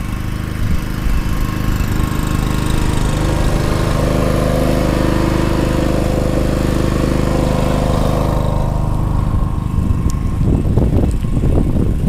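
Portable petrol generator running at a steady, even speed under the load of a deep-well pump. It runs smoothly without surging on a newly fitted carburettor; the owner believes the old carburettor's needle was sticking.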